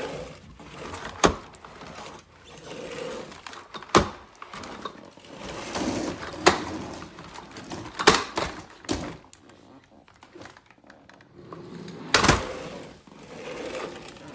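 Irregular hard knocks and clicks, a second or more apart, of the plastic dust canister and body of a Dyson Ball Animal 2 upright vacuum being handled.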